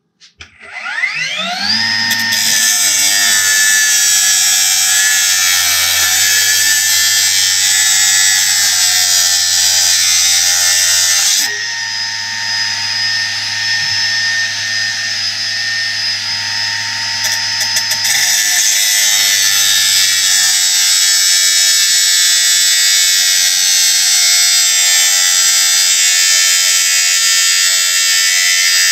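Milwaukee M18 FUEL 9-inch cordless brushless cut-off saw spinning up with a rising whine, then running at a steady high whine as its blade cuts through steel. For several seconds in the middle the sound drops a little and loses its hiss, then it comes back up.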